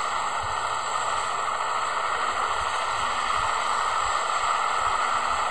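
Steady rushing noise of aircraft at a mountain airstrip, heard through a hissy, lo-fi recording.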